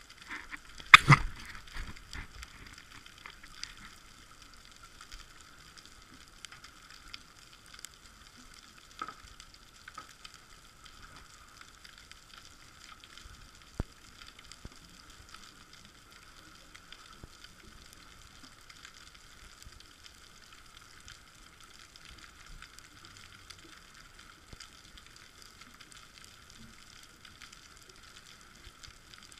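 Underwater reef ambience recorded from inside a camera housing: a steady fine crackle like frying, typical of snapping shrimp on a Mediterranean rocky bottom. A sharp knock on the housing about a second in, and a single click near halfway.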